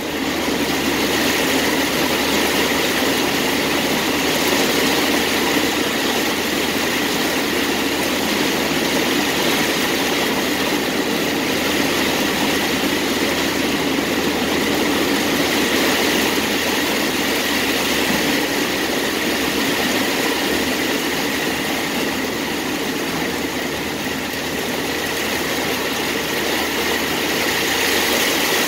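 Heavy rain beating on a car's roof and windshield while driving through a downpour, mixed with tyres spraying through water on the road; a loud, steady rush.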